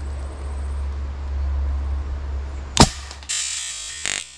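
A single shot from a homemade air rifle, a sharp crack nearly three seconds in, over wind rumbling on the microphone. After it comes a short hissing stretch that cuts in and out.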